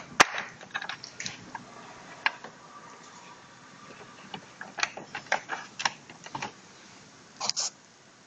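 Irregular light clicks and taps in two loose clusters, with a short double tap near the end, over faint hiss: handling noise from a handheld camera being moved close to an electronics board and its cables.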